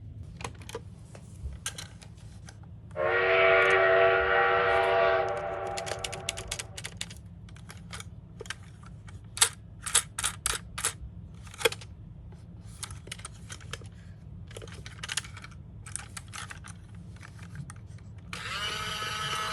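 Hard plastic toy minicars clicking and clattering as they are handled and rolled. A toy's electronic sound effect plays a steady, buzzy tone for about two and a half seconds a few seconds in, and another electronic toy sound starts near the end.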